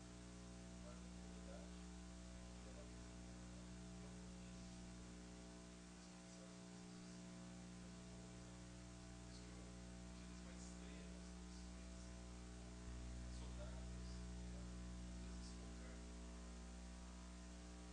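Faint, steady electrical mains hum with a stack of evenly spaced overtones, otherwise near silence. The low part of the hum swells a little about thirteen seconds in and eases back a couple of seconds later.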